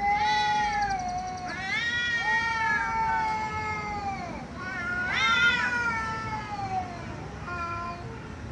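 Domestic cat meowing: four drawn-out meows in a row, the second lasting about three seconds and the last one short.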